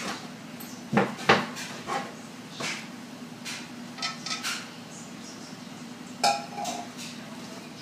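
Bottles and jars knocking and clinking as they are moved about on a kitchen cabinet shelf: a string of sharp knocks, the loudest about a second in, a cluster of clinks near the middle and a ringing clink near the end. A low steady hum runs underneath.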